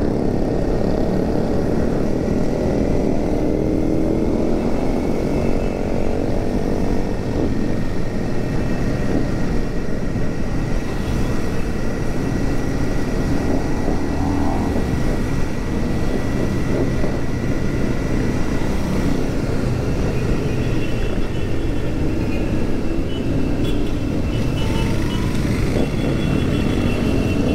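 Royal Enfield Super Meteor 650's 648 cc parallel-twin engine running steadily while cruising, heard from the bike with wind noise over the microphone and other motorcycles of the convoy around it.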